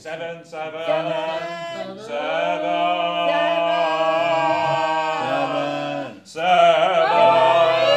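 Voices holding long sung notes, three sustained tones with short breaks about two seconds and six seconds in, part of a vocal exercise where the loudness is rated on a number scale.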